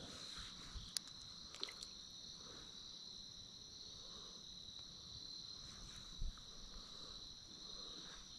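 Faint, steady high-pitched trilling of an insect chorus. A few light clicks sound in the first two seconds, and a soft thump comes about six seconds in.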